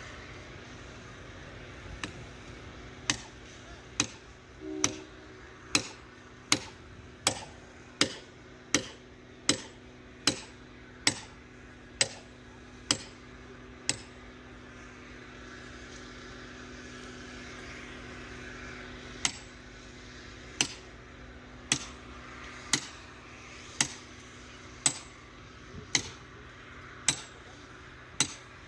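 Hammer blows on steel at a freshly thermite-welded rail joint: sharp metal-on-metal strikes, a little more than one a second, stopping for about five seconds midway and then resuming.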